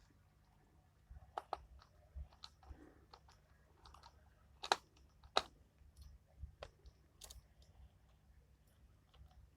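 Scattered light clicks and taps of small tools and parts on a smartphone being worked on, with two sharper clicks about halfway through.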